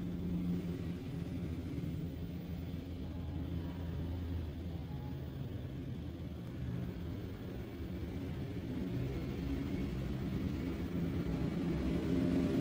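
Low, steady background rumble with a faint hum, growing slightly louder toward the end.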